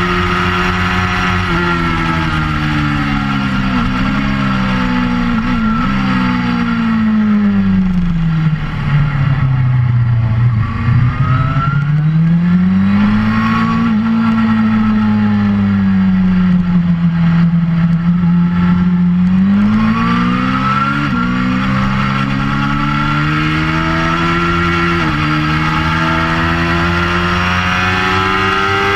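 2004 Suzuki GSX-R600's inline-four engine through a Werx aftermarket exhaust, heard onboard at track pace. The revs drop with downshifts to a low point about a third of the way in, then the bike pulls out and holds steady revs. In the last third it accelerates through several upshifts, each marked by a rise in pitch and a sudden drop.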